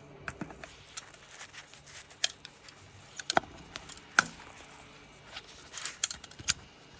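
Irregular small, sharp clicks and scrapes of a repair tool working against a phone's parts to loosen adhesive softened with isopropyl, with the loudest clicks a little past the middle.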